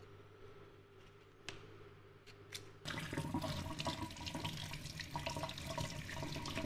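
Kitchen faucet turned on about three seconds in, water running and splashing over a peeled chayote held under it and into a stainless steel sink. Before that, a few light clicks as the chayote is peeled with a knife.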